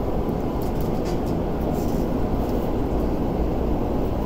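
Steady low rumble and hum inside a Tokyu 5050 series commuter train standing at a station platform, its air conditioning and onboard equipment running while it waits to depart.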